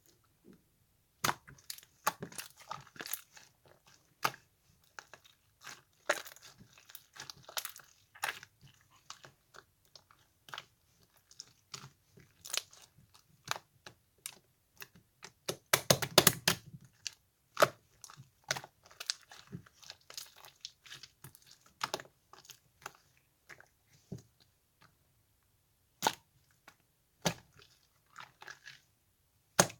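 Slime being squished and pressed by hand, giving irregular crackling clicks and pops, thickest in a dense run about halfway through.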